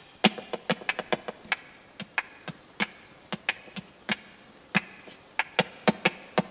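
Flamenco hand claps (palmas), sharp and loud, in an irregular syncopated rhythm of about four a second.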